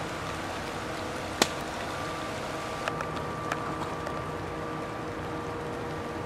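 Light rain falling steadily on the woods, a soft even hiss, with one sharp tick about a second and a half in and a few fainter ticks around the three-second mark.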